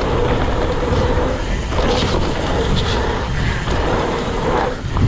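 Mountain bike running fast down a muddy trail: rushing wind on the microphone over the rattle of the bike and its tyres on the dirt, with a faint steady whine.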